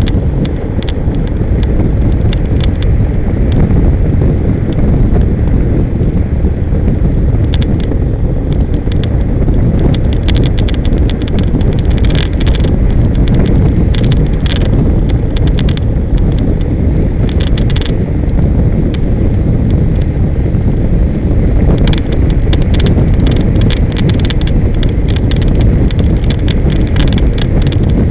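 Loud wind buffeting the microphone of a kite buggy's onboard camera as the buggy rolls across the beach, with irregular clusters of clicks and rattles from the buggy.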